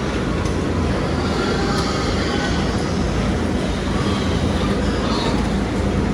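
Steady, loud mechanical rumble with a low hum running under it.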